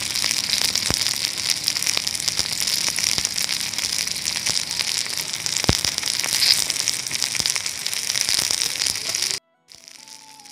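Tomato pieces frying in a tiny pan with a steady crackling sizzle, and a few sharp clicks of the spoon against the pan. The sizzle cuts off suddenly near the end, and quiet music follows.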